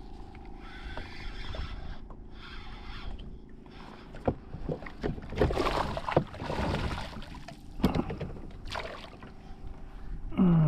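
Water splashing beside a plastic kayak, with several sharp knocks and scrapes on the hull and rod gear, as a hooked fish thrashes at the surface. A faint steady hum runs underneath.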